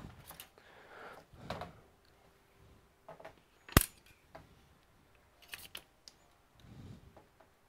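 Handling noise from hands working on a laptop on a silicone work mat: scattered light clicks and rustling, with one sharp click a little under four seconds in and a quick cluster of clicks about a second and a half later.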